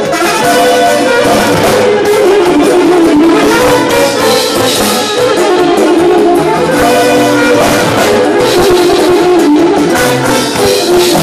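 Live band playing: violin and accordion carry the melody over keyboards and drums, continuously and loudly.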